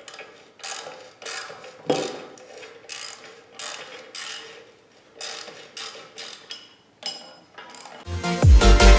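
Hand socket ratchet loosening the plow's bolts: repeated short back-and-forth strokes of pawl clicking, about two a second. Loud electronic dance music starts about a second before the end.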